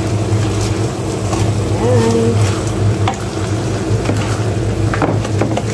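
Sweet and sour sauce boiling and sizzling in a frying pan around two fried whole fish, with a wooden spatula stirring and knocking against the pan a couple of times, over a steady low hum.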